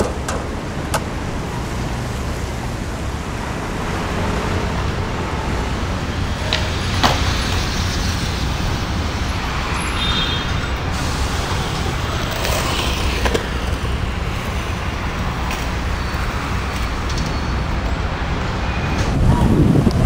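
Skateboard wheels rolling on concrete, a steady rumbling noise broken by a few sharp clacks of the board.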